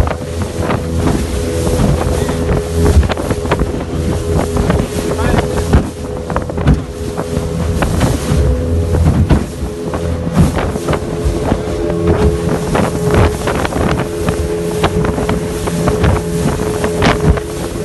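Outboard motor of a small open boat running steadily at speed, with the hull knocking and slapping on the chop and wind buffeting the microphone.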